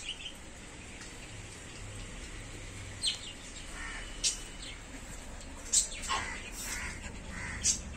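Birds calling a few times in the background: short high chirps spaced a second or two apart, and one longer, lower call near the end.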